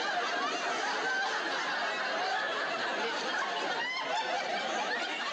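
Sitcom studio audience laughing, many voices at once in a long, steady laugh.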